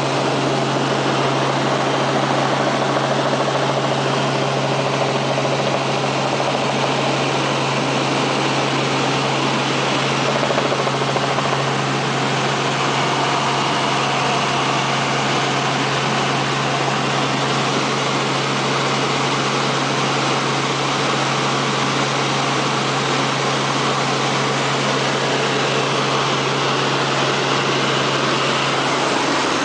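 Helicopter cabin noise in flight: a steady engine and rotor drone with a constant low hum under an even hiss, unchanging throughout.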